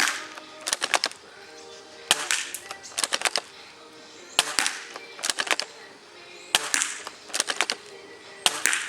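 CYMA ZM51 airsoft gun firing four single shots about two seconds apart. Each sharp crack is followed about half a second later by a quick run of clicks.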